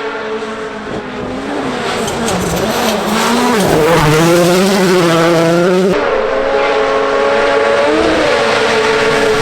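World Rally Championship rally car engines at full throttle. The first car grows louder as it approaches, its pitch climbing and dropping through gear changes; about six seconds in the sound cuts to another car held at a steady high pitch, with brief blips.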